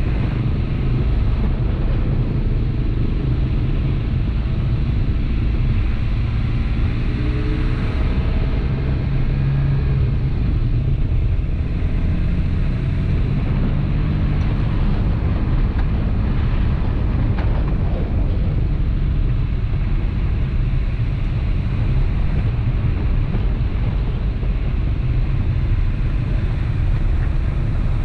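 Toyota Tacoma pickup driving over a rough dirt track: a steady engine drone mixed with rumbling tyre and gravel noise, the engine pitch shifting a little about a third of the way in.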